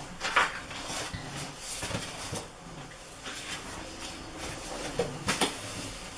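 Pages of a paperback picture book being turned and handled: soft papery rustles and a few light taps, two close together about five seconds in.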